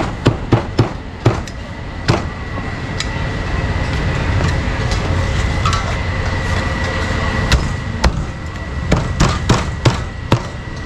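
Cleaver chopping meat on a chopping block: a few sharp chops in the first two seconds, a quicker run of chops near the end, over steady street and traffic noise.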